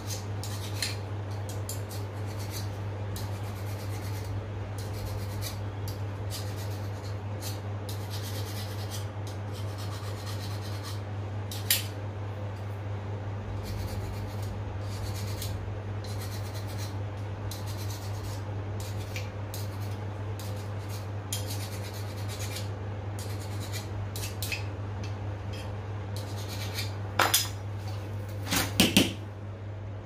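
Small metallic clinks and clicks of copper fittings and hand tools being handled at a commercial fridge's refrigeration unit, with a sharp click about twelve seconds in and a few louder clicks near the end, over a steady low hum.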